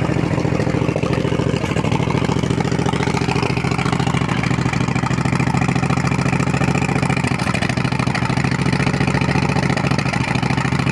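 Motorcycle engine idling steadily at slightly raised revs, with an occasional sneezing misfire. The misfires are a running fault: at lower revs the engine stalls on a sneeze.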